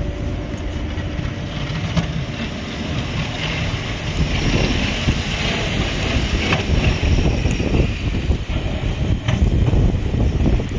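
Pickup truck with a front snowplow blade driving past, its engine running and the blade pushing snow, growing louder about four seconds in. Wind buffets the microphone throughout.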